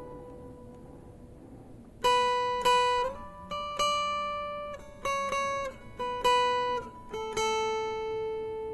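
Background music: a plucked guitar playing slow single notes, each struck sharply and left to ring and fade. The first two seconds hold only a fading note before the notes start again.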